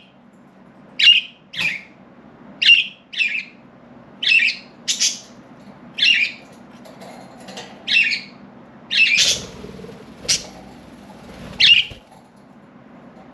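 Budgerigars giving short, sharp chirping calls, one every second or so, stopping about a second before the end.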